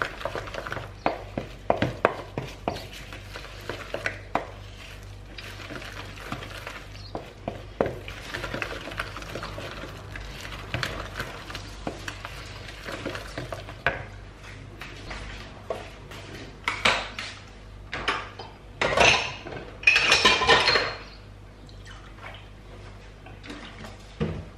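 Wooden spoon stirring a thick flour-and-vegetable batter in a plastic mixing bowl, with irregular knocks and scrapes against the bowl. A few louder scrapes come about two-thirds of the way through.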